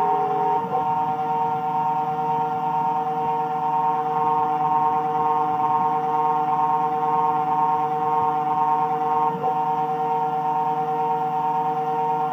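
Taig CNC milling machine running while a small end mill cuts brass: a steady whine of several tones, the highest one pulsing evenly. The tones jump briefly in pitch about 0.7 s in and again about 9.5 s in.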